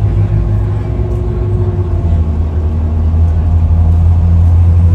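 Steady low drone of a moving car's engine and tyres, heard from the car as it drives along. The drone grows a little louder about two seconds in.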